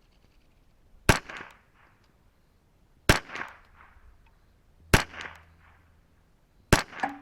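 Four .22LR rifle shots from a Ruger 10/22 with a Kidd barrel, fired about two seconds apart. Each shot is followed a fraction of a second later by a softer report.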